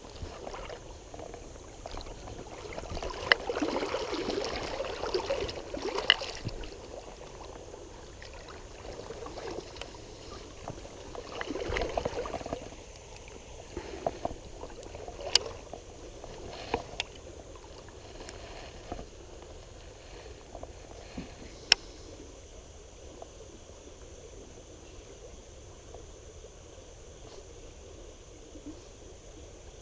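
River water sloshing and splashing around a person wading, in two louder spells with steady faint stream noise between, and several sharp clicks.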